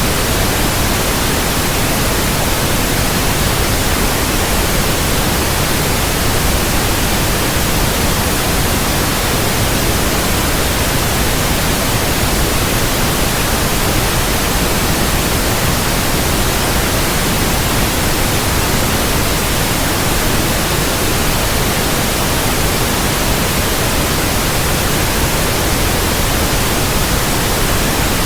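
Steady white noise played as a sleep sound for babies: an even, unchanging hiss spread from deep to high pitches.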